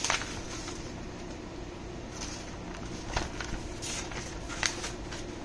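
Scattered light handling noises, short clicks and rustles a second or so apart, over a steady low background hum.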